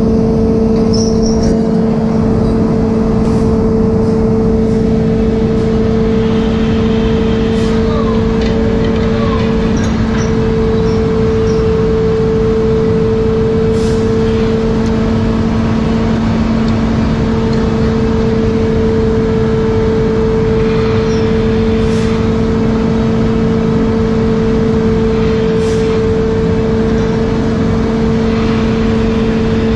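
Fishing trawler's deck machinery and engines running with a loud, steady hum, with a few sharp knocks now and then.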